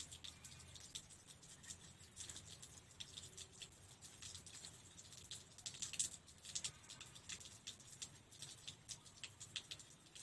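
Faint, irregular light clicks and rustling as fence material is handled and woven by hand.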